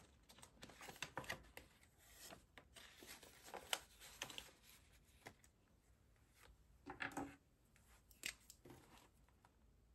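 Faint rustling and crinkling of a paper cash-envelope page and a banknote being handled in a ring binder, with soft scattered taps and clicks. The louder rustles come about four seconds in and again near seven and eight seconds.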